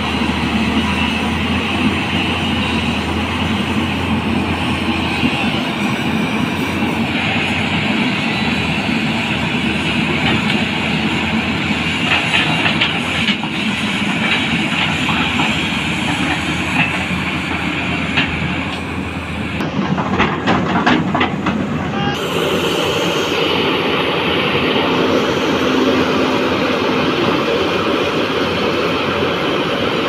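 Heavy diesel crawler excavators running hard with hydraulic strain as a JCB 215 stuck in deep mud works its boom and bucket to free itself, with a Tata Hitachi 210 close by. Bursts of metal clanking from the bucket and tracks come twice in the middle.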